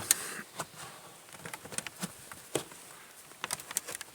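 Scattered light clicks and taps of hands working at a Mercedes-Benz W210's plastic under-dash cover, pulling at its plastic clips to release it.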